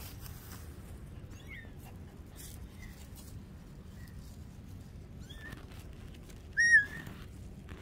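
Kittens mewing: several faint, short, high-pitched mews, then one louder mew about six and a half seconds in.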